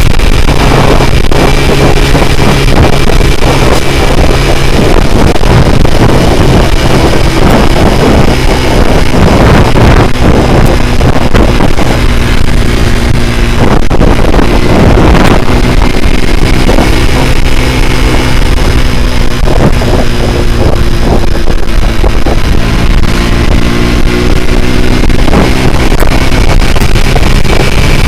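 Honda C70 motorcycle with a Honda Grand single-cylinder four-stroke engine running hard at road speed, its engine note rising and falling as the throttle changes, with heavy wind buffeting on the microphone.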